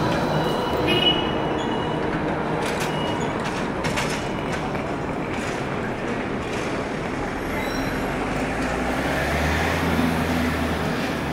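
Articulated electric trolleybus passing close in city street traffic: a steady rush of drive and tyre noise. A deeper rumble from another heavy vehicle swells about eight seconds in.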